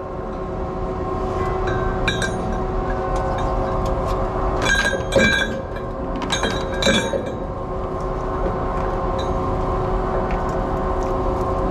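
Ship's anchor windlass running with a steady machinery hum while anchor chain is hauled in over it by a wire rope. The heavy steel chain links clank against the windlass about four times in the middle, in two close pairs.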